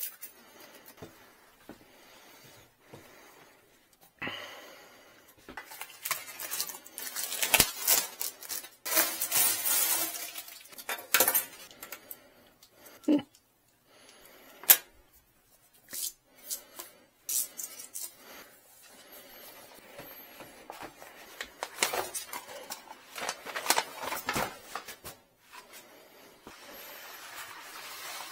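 Plastic wrap crinkling and rustling as it is pulled off a decal's cardboard shipping tube, with scattered knocks and clicks from handling. The loudest rustling comes about a third of the way in, and there is another stretch of it later as the vinyl sheet is unrolled.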